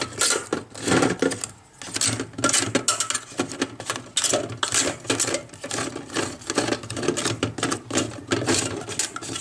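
Roasted chestnuts clattering against each other and the air fryer basket as they are tossed by hand to coat them in butter: a dense, irregular run of knocks and clicks, several a second.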